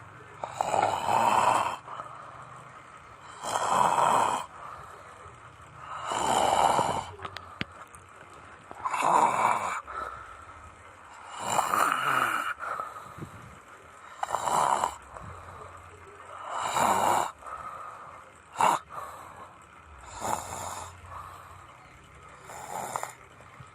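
A person snoring in deep sleep: a steady run of snores, one roughly every two and a half seconds, with quieter breaths in between.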